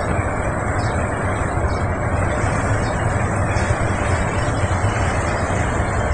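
Fast-flowing floodwater rushing past: a steady, even rush with a deep rumble underneath.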